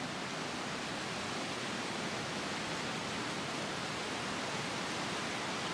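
Strong, steady wind rushing through the hardwood trees as a constant even rush, with no gusts or breaks.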